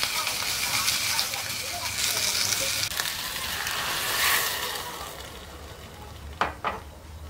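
Seaweed sizzling as it is stir-fried in a hot pot and stirred with a spatula. Water is then poured in, with a brief louder hiss about four seconds in, after which the sizzling fades. Two short knocks come near the end.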